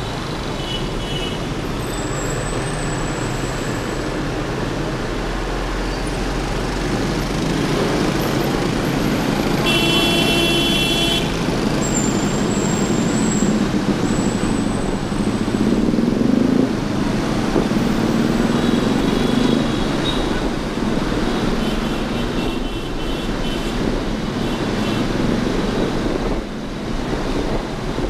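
City motorbike traffic heard while riding on the back of a motorbike: steady road and engine noise, with a vehicle horn honking for about a second around ten seconds in and fainter honks later on.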